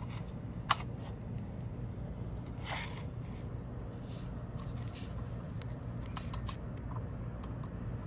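Small clicks and light scraping from handling a plastic car door handle and its metal key-lock cylinder and lever, with one sharper click under a second in and a brief scrape near the middle, over a steady low hum.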